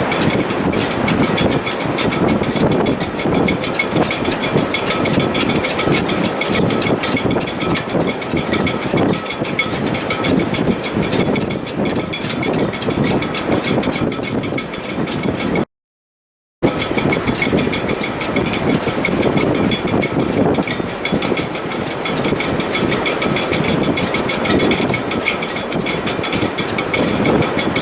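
Wind in a sailboat's shrouds and stays in heavy weather: a loud, steady rushing with faint high whistling tones held over it. The sound cuts out completely for about a second near the middle, then resumes.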